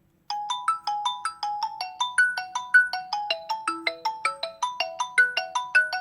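Poco X5 Pro phone ringtone starting a moment in: a quick melody of short chiming notes, about four a second, each dying away fast as the tune steps up and down.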